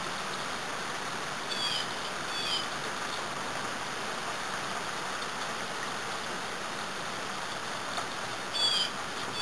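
Steady light rain falling, an even hiss of patter. Three short, high, falling chirps cut through it: two a little under a second apart near the start, and one near the end.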